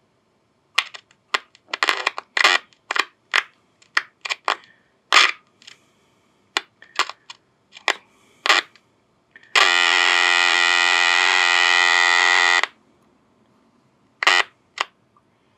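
The QYT KT-7900D mobile radio's speaker crackles on and off in a quick string of short bursts as a finger presses on its circuit board. Then it gives a steady buzzing tone for about three seconds, and near the end two more brief crackles. The audio cutting in and out under pressure is the sign of a loose solder joint, which the owner suspects; the fault was later found at the LA4225 audio amplifier.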